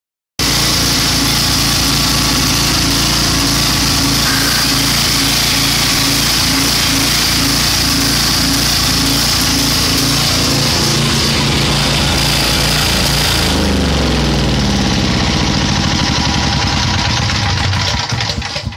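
Coleman 5000 portable generator's engine running steadily under the load of a corded circular saw, with the saw motor's whine on top. About 13 seconds in, the whine stops and the engine slows and chugs, then dies near the end because it has run out of gas.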